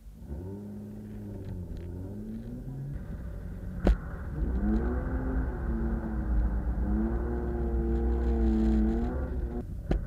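BMW E36 328i's straight-six engine revving hard through a drift, heard from inside the cabin. The revs swell and dip in the first few seconds and a single sharp knock comes a little before halfway. The revs then climb and hold high, wavering, before dropping off near the end.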